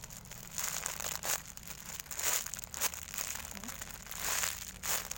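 Plastic wrapping on a squishy toy crinkling as it is handled, in about six short rustles.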